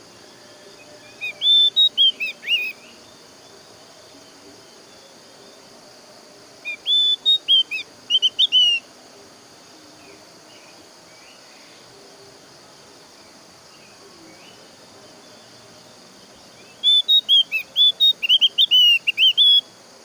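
Javan grey-throated white-eye (opior jawa) singing three bursts of quick, chirping whistled notes, each lasting one to three seconds, over a steady hiss of insects.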